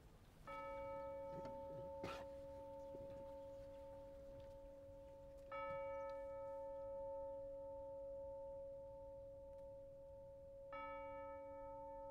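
A bell-like tone struck three times, about five seconds apart, each strike ringing on steadily until the next. There is a brief rustle about two seconds in.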